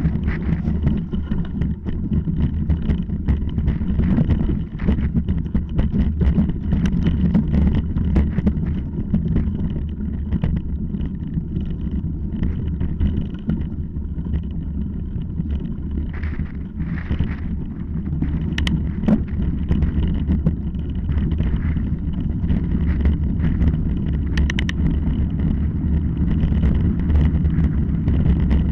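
Wind rushing over an action camera's microphone with the rumble and clatter of a mountain bike riding fast over loose gravel and rocks: a steady low rumble broken by frequent short rattles and knocks.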